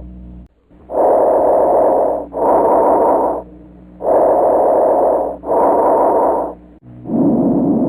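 Recorded breath sounds heard through a stethoscope: two full breaths, each an inhalation and an exhalation of noisy rushing air of about equal length with a short gap between. After a brief click about seven seconds in, a lower-pitched breath begins.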